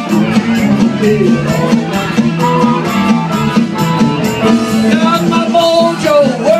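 Live blues band playing loud: a repeating bass riff under a wavering lead melody line.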